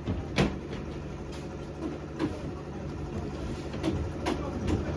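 An engine running steadily with a low hum, with a few sharp knocks or clatters, the loudest less than half a second in.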